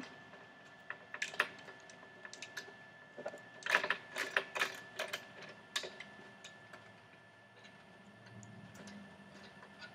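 Scattered clicks and taps on a computer keyboard, coming in small bunches and thinning out after about six seconds.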